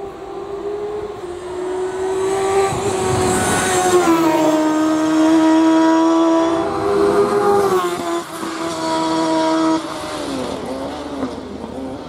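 Hillclimb race car engine at full throttle as the car passes, its note climbing and then dropping sharply at gear changes about four and eight seconds in. It is loudest through the middle and falls away near the end.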